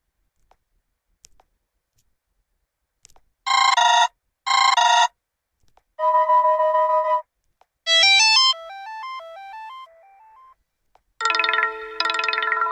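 Vsmart Live smartphone notification tones played one after another: faint clicks, then two short beeps, a held chord, a quick run of chime notes and a ringing chime that fades away.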